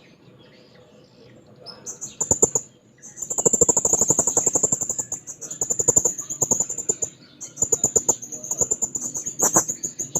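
Serindit (hanging parrot) calling in full song: long, rapid trains of very high, thin, shrill chirps. They start about two seconds in and run in bursts of a few seconds with brief breaks.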